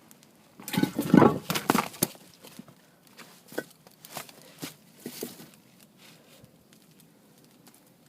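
Campfire crackling with scattered sharp pops. About a second in comes a louder, denser burst of crackling and knocks lasting about a second and a half.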